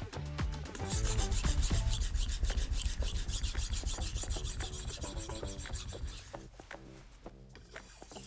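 VG10 nakiri knife blade being sharpened, its edge scraping back and forth across the sharpening surface in quick repeated strokes that die down about six seconds in.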